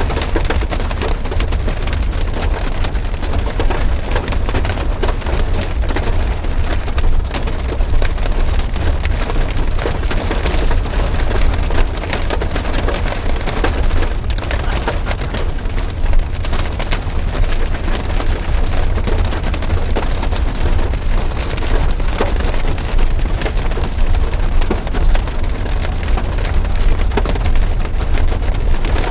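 Heavy thunderstorm rain pelting down, a dense clatter of sharp drop impacts over a steady low rumble.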